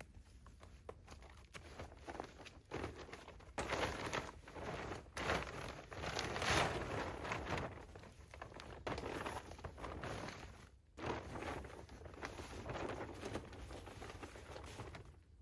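Irregular rustling and crinkling of a plastic tarp being handled and spread out, over a steady low rumble of wind on the microphone.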